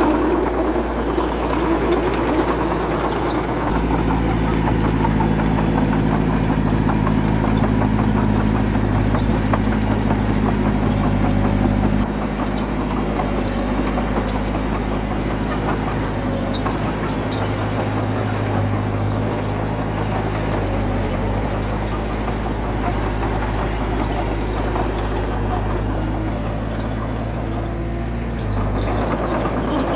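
Diesel engine of heavy earthmoving equipment running steadily, its note and load changing abruptly a few times.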